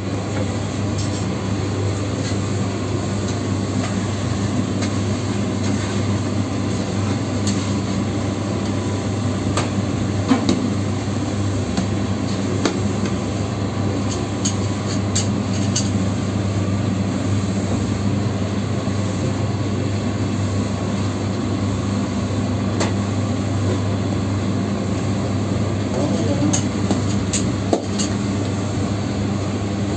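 Steady low hum of bakery machinery running, with scattered light knocks and taps as a wooden rolling pin flattens dough on the counter.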